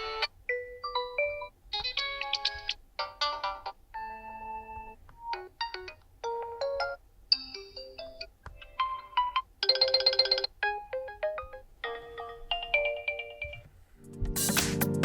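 Realme 11 smartphone ringtone previews playing in quick succession: about a dozen short melodic snippets, roughly one a second, each cut off as the next one starts. Near the end, louder bass-heavy music comes in.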